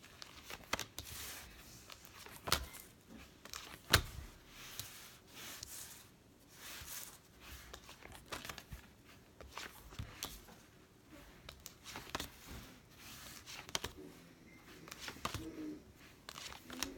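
A deck of fortune-telling cards being handled: shuffled and dealt out, with papery rustling and scattered sharp snaps of the cards, the loudest two a second and a half apart.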